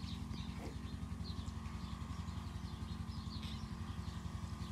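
Small birds chirping in short, scattered calls over a steady low engine hum.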